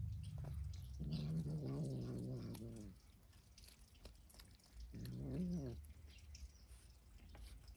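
A cat growling low, in two drawn-out growls: one of about two seconds starting about a second in, and a shorter one about five seconds in.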